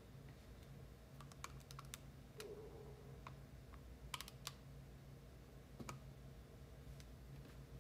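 Faint, scattered light clicks and taps from small objects being handled while a setup is rearranged, in small groups, over a low steady room hum.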